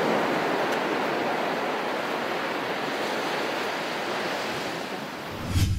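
Ocean surf breaking on a beach: a steady rush of waves that slowly fades. Near the end a low boom and a whoosh cut in, the start of a news station's logo sting.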